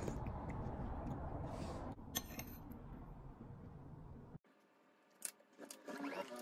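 Metal spoon clinking and scraping against a ceramic bowl, with a short run of sharp clinks about two seconds in, over a low steady background rumble. The sound drops off suddenly, and is followed by a few soft computer keyboard clicks.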